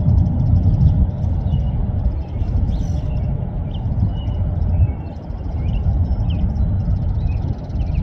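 Low, uneven rumble with small birds chirping over it.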